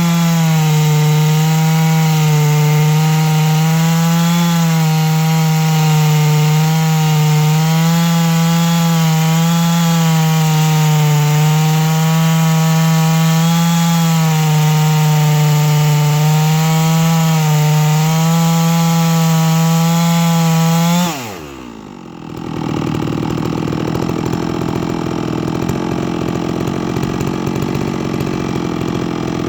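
Two-stroke chainsaw engine milling a big black oak log, running steadily at high revs under load with a slight waver in pitch. About 21 s in, the revs fall away sharply and the sound drops briefly, then gives way to a lower, rougher running noise.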